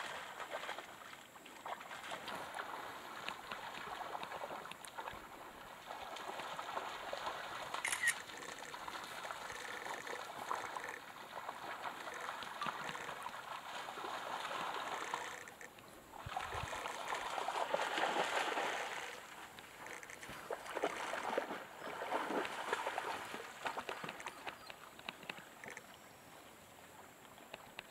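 Shallow river water splashing and sloshing as African wild dogs run and wade through it, with a steady trickle of flowing water underneath. The splashing is loudest in a swell just past the middle.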